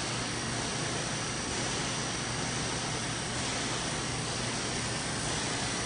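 Steady machine hum with an even hiss from a running wiped-film short path distillation system.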